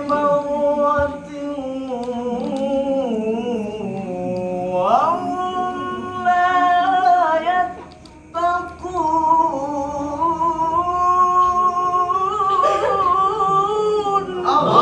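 A single male voice reciting the Qur'an in melodic tajwid style in maqam Nahawand, drawing out long, high, ornamented notes, with a brief breath break about eight seconds in. Right at the end, a group of voices comes in together to repeat the phrase.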